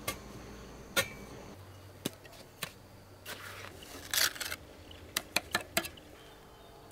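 A series of irregular sharp knocks and clicks, with a quick cluster of taps about four seconds in and several more a second later, over a faint steady hum.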